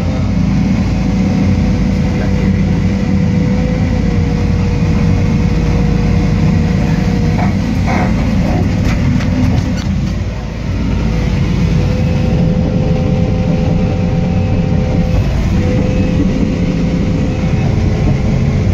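Excavator diesel engine running steadily under hydraulic load, with a steady pump whine over the low rumble, as the left track's travel drive is tested during warm-up. The level dips briefly about ten seconds in.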